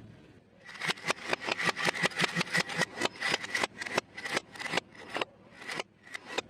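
Crunchy fried food crackling and breaking apart under a car tyre, as a fast run of sharp crunches, several a second, that thins out with short pauses near the end.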